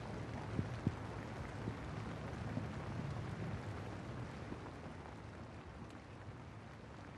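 Rain falling steadily, a continuous hiss, with two brief knocks just under a second in.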